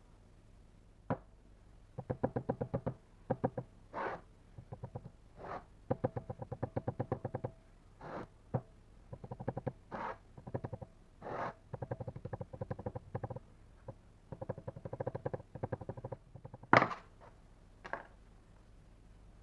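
Repeated short bursts of rapid scraping, each about a second long, with a sharp knock near the end.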